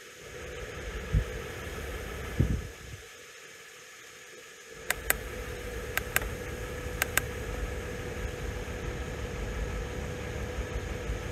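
Buttons on a handheld car diagnostic scan tool clicking three times, each a quick double click of press and release, about a second apart. Under them runs a low steady rumble with a faint hum, and two soft thumps come before the clicks.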